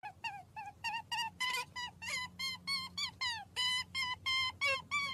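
Rabbit sound effect: a rapid run of short, high-pitched squeaks, about four a second, some sliding up or down in pitch.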